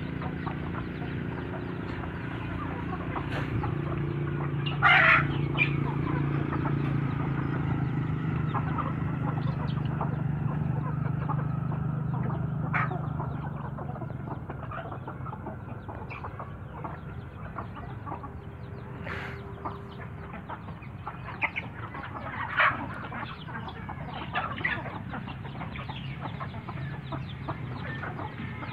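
A flock of chickens clucking while they peck at scattered feed, with a few short, sharp squawks standing out, the loudest about five seconds in and again near the middle. A low steady hum lies under the first half and fades out.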